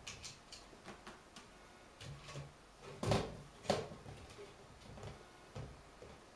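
A wicker wastebasket knocked over by a kitten, hitting the floor with two loud knocks about three seconds in, with lighter taps and scrapes of the wicker and the kitten around them.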